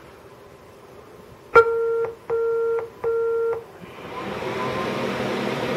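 Power Mac G5 switching on with a click, then giving three short, identical error beeps instead of its startup chime: the three-beep code for a RAM fault, which the owner cures by swapping the memory modules. A steady rush of fan noise then builds up.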